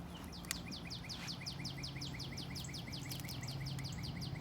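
A bird calling in a fast, even series of high, falling notes, about six a second, over a low steady hum.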